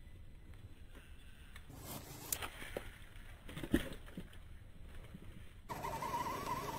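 Hard-bodied scale RC crawler truck tumbling on a dry clay slope: a few light knocks and scrapes, the loudest about three and a half seconds in. Near the end a wavering high whine starts.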